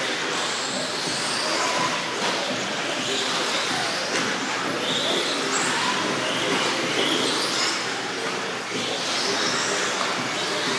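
1/10-scale electric 4WD RC buggies racing on a dirt track: high-pitched electric motor whines that keep rising and falling as the buggies accelerate and slow, over a constant noisy haze.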